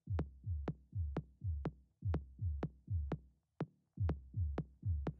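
Background electronic music with a steady beat of about two strikes a second, each a sharp click over a low thump.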